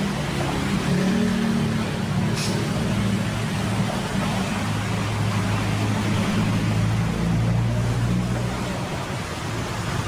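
Electrolux EWF85761 front-loading washing machine running its wash cycle: a steady low motor hum under a wash of noise, with one short click about two and a half seconds in.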